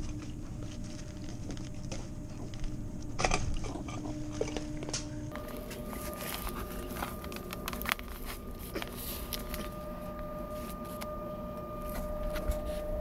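Knocks, clicks and rustling as a chilled-water valve with its electric actuator is worked loose from its pipe couplings and handled, with sharp knocks about three seconds in and again near eight seconds. A steady machine hum comes in about five seconds in.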